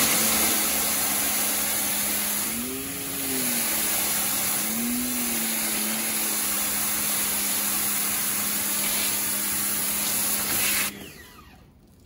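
Pressure washer spraying a fabric seat belt: a loud, steady hiss of water over the hum of the washer's pump motor. The hum rises briefly in pitch twice. Spray and motor stop about a second before the end.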